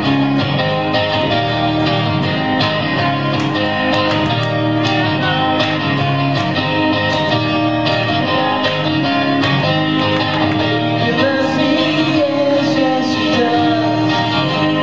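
Live rock band playing a medley in the key of E: guitar strummed over bass and drums, steady and loud throughout.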